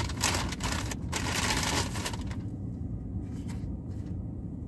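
Crinkling and rustling of fast-food takeout packaging being handled, busiest in the first two seconds and then fainter, over a steady low rumble.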